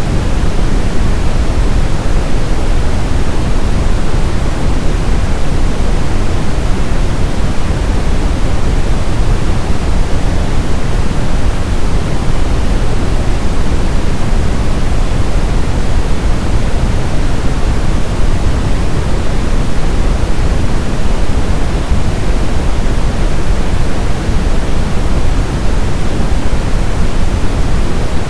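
Brown noise: a steady, loud, deep rushing hiss, strongest in the bass and thinning toward the treble, with no change or events.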